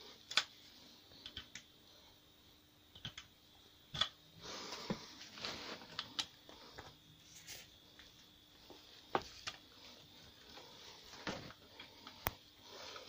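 Irregular light clicks and taps of a hex key and hands working on a bicycle crank, the sharpest one just after the start, with a stretch of rustling about four to six seconds in.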